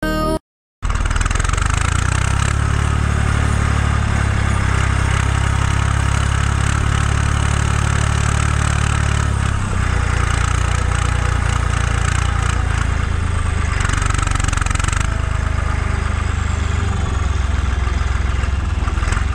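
Lindner 1600A tractor's diesel engine running steadily, heard close to its upright exhaust stack. The engine sound cuts in about a second in, after a brief silence.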